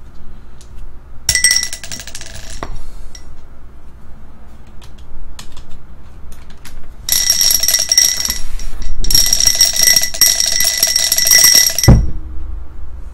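Dice rattling inside a pint glass as it is shaken, the glass ringing. There is a short bout of shaking about a second in and two longer bouts from about seven seconds, ending with a thump as the glass comes down.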